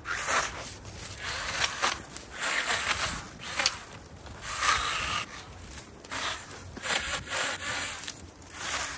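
Irregular scraping and rustling strokes, about one a second, as brush and debris are cleared along a fence line.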